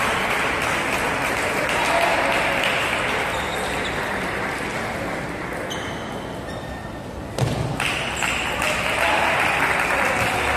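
Taps of a table tennis ball bouncing on the table and bats, over a steady murmur of spectators' voices. The crowd noise jumps up suddenly about seven seconds in.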